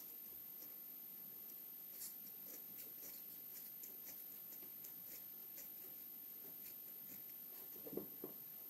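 Scissors cutting slowly through a tough rubber sheet, giving faint, irregular snips and scratches. Two short, louder thumps come near the end.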